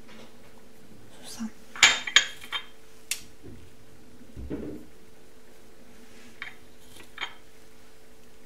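Kitchen clatter of dishes being handled: a quick run of sharp clinks and knocks about two seconds in, a duller thump near the middle and two lighter clicks later, over a steady faint hum.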